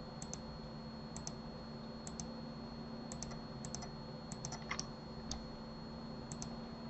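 Light clicks of a computer keyboard and mouse, about one every second, often in quick pairs, over a steady low hum.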